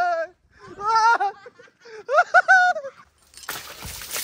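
High-pitched laughing in two short bursts, then, about three and a half seconds in, a sudden hiss of water being splashed over a person's head.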